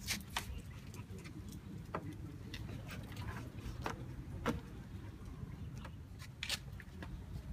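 Open-air background with a steady low rumble and scattered light clicks and ticks at irregular intervals.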